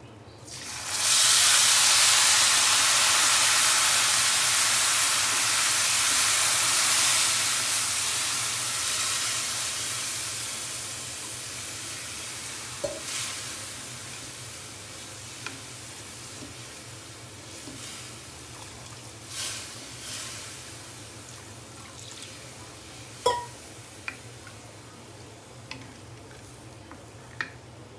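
Water poured into a hot stainless-steel pan of ghee-roasted vermicelli sizzles loudly, starting suddenly about a second in and slowly dying down over about twenty seconds. A wooden spatula stirs the vermicelli and knocks against the pan a few times.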